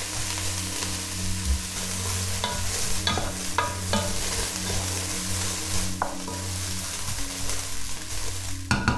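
Soy chunks, onion and carrot sizzling steadily in hot coconut oil in a pot, being sautéed and stirred with a wooden spoon that knocks against the pot several times.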